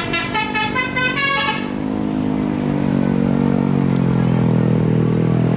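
Tour bus 'telolet' multi-tone horn playing a quick run of short notes stepping up and down in pitch for under two seconds. It gives way to a deep vehicle engine running steadily and getting a little louder.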